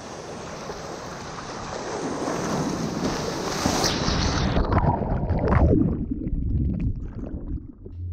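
Surf water rushing and splashing around a surfboard riding a wave, with wind buffeting the microphone. About halfway through, the hiss thins out, leaving scattered splashes and a deep low rumble.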